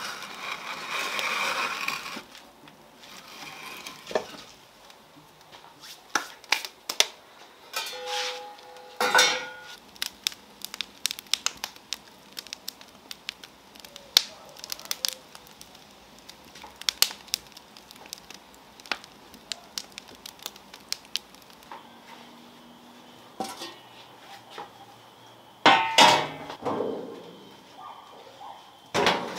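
Wood fire burning in a brick wood-fired oven: irregular sharp crackles and pops of the burning logs. It opens with a short rustle and clatter of logs being stacked into the oven, and a couple of louder knocks come near the end.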